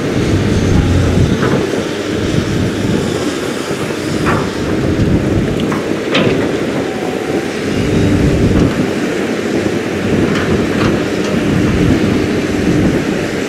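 Kobelco crawler excavator's diesel engine running steadily under load while it loads soil into a dump truck, with a few short knocks around the middle.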